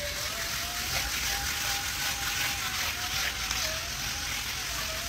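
Cordless screwdriver spinning a scrub brush: a steady motor whine that wavers slightly in pitch, over the hiss of bristles scrubbing a wet foam puzzle mat.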